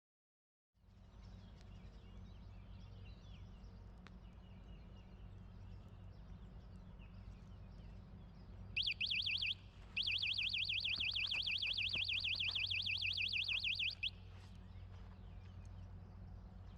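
Electronic alarm warbling rapidly up and down in pitch for about five seconds, with a brief break near the start. Before it, faint outdoor ambience with a low steady hum and a few faint bird chirps.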